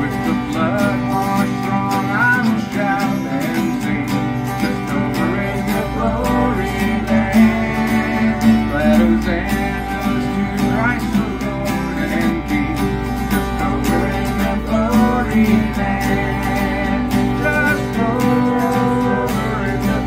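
Live acoustic country music: two acoustic guitars strumming and a man singing. A fiddle plays at the start, then drops out.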